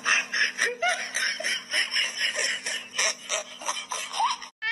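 A person giggling in quick, breathy bursts, over a steady low hum.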